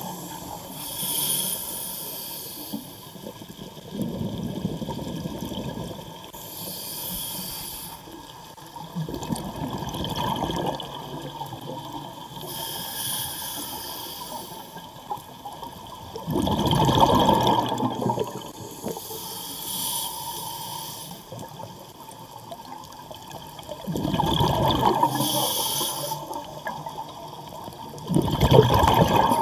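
Scuba diver breathing through a regulator underwater: a hiss on each inhalation alternates with the rumbling gurgle of exhaled bubbles, in slow breaths roughly every five to six seconds.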